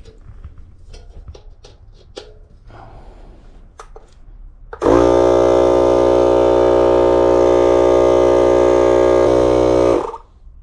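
Compact Husky tire inflator's small motor running steadily for about five seconds, starting about halfway in and cutting off abruptly near the end, after a few light clicks and knocks. It is not moving enough air to inflate and seat the Maxxis mountain-bike tire.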